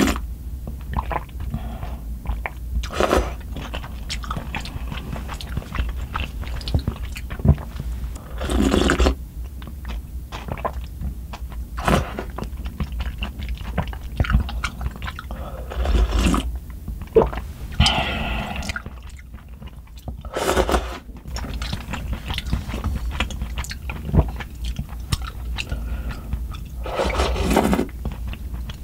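Close-miked eating sounds: wet chewing, with repeated slurps of spicy noodle broth sipped from a small bowl and a spoon every few seconds.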